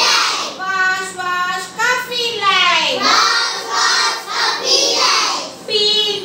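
Child singing a melodic song in phrases with gliding notes.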